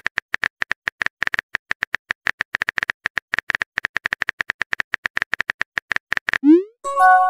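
Texting-app keyboard sound effects: a rapid run of typing clicks, about eight to ten a second, as a message is typed out. Near the end comes a quick rising sweep and a chime, the message-sent sound.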